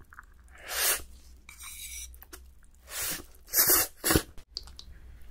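Close-miked eating: a mouthful of noodles slurped in and chewed, then sips from a spoon, giving a few loud, short wet slurps about a second in and again around three to four seconds in.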